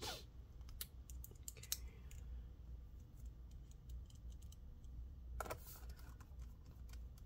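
Small scattered clicks and taps of a Torx T5 screwdriver and tiny screws being handled against a laptop's bottom cover, with one brief louder scrape about two-thirds of the way through, over a low steady hum.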